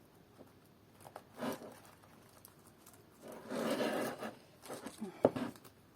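Rustling and scraping of a branch being handled and pushed into the foam of a planter, with a sharp click or tap about five seconds in.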